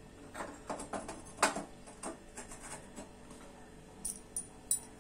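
Light, irregular metallic clicks and clinks as a gas stove's burner parts are handled and the burner cap is set back in place. The loudest clink comes about one and a half seconds in.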